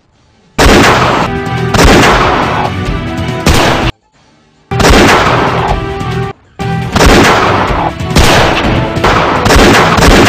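A series of loud shot-like bangs, roughly one a second, each with a long echoing tail, over background music. The sound cuts off abruptly to silence a few times, near the start, about four seconds in and about six seconds in.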